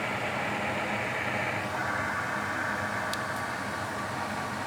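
Steady whooshing noise of a fan or blower, changing in tone about 1.7 seconds in, with one faint click a little past the middle.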